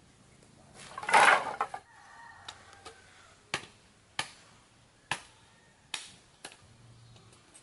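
A loud clattering crash about a second in, like a bundle of sticks being dropped. Then five sharp, separate knocks: a blade chopping into wood.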